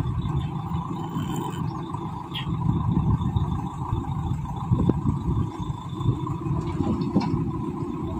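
Diesel engine of a JCB 3DX backhoe loader running steadily as its arm swings the empty bucket back up, with a few short knocks.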